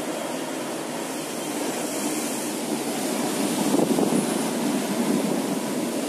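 Wind buffeting the microphone over the rush of sea water foaming along a moving ship's hull, swelling a little about four seconds in.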